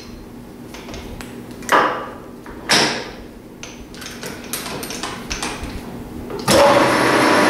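A few sharp metal knocks and clanks as the lathe's tool post and carriage are repositioned, the loudest about two and three seconds in. About six and a half seconds in, the metal lathe is switched on and runs with a loud, steady whir.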